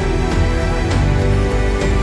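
Background music with sustained notes and occasional percussive hits.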